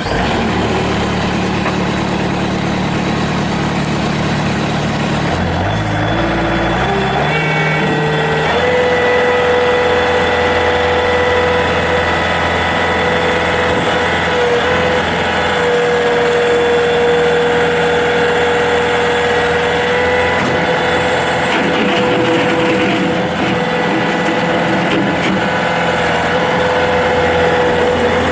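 Bobcat S220 skid steer loader's Kubota V3800 turbo diesel, just started, idling for about five seconds, then throttled up in a smooth rise and held running steadily at the higher engine speed.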